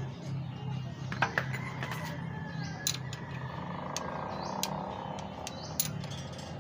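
Several sharp metallic clicks and taps of a wrench and screwdriver against the rocker-arm adjusting screws and locknuts of an engine's valve train, over a steady low hum.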